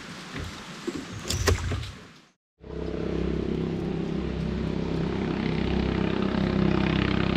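Small clicks for about two seconds, then, after a moment of silence, a small boat engine running steadily at an even speed.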